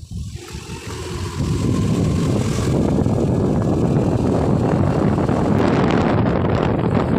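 Motorcycle running along a road with wind rushing over the microphone; the noise dips briefly at the start, then builds and stays loud.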